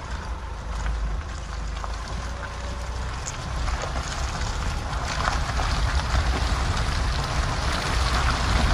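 A 4x4 driving over a rough dirt track: a steady low rumble under an even hiss of tyres and wind, with scattered small crackles.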